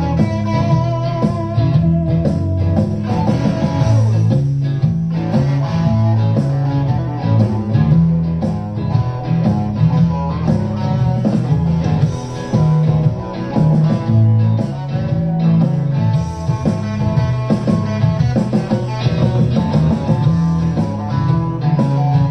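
Solid-body electric guitar played through an amplifier, free improvised playing: single notes and chords following one another without a break.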